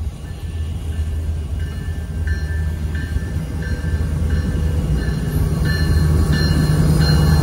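Ontario Northland EMD SD75I diesel locomotive approaching, its engine drone growing steadily louder as it nears. Its bell rings steadily over the top, about one strike every two-thirds of a second, also getting louder.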